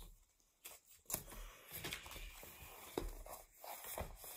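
Faint rustling and crinkling of a paper or plastic packet being handled, with a few soft clicks.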